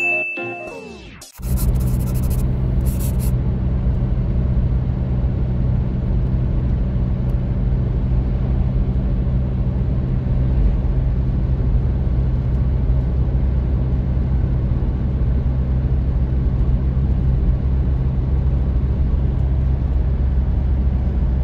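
Steady low rumble of a car cruising along a road, heard from inside the cabin: engine and tyre noise at an even speed.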